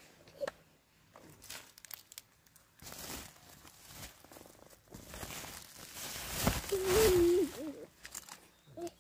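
Woven plastic sack rustling and crinkling as it is opened and shaken out, loudest about six to seven seconds in. A short wavering voice-like tone sounds over the loudest rustle.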